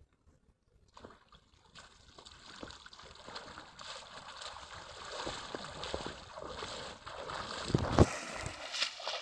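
Water sloshing and splashing as a wet cast net is hauled up out of the water and a man wades through the shallows, starting about a second in and growing louder. A sharp thump near the end.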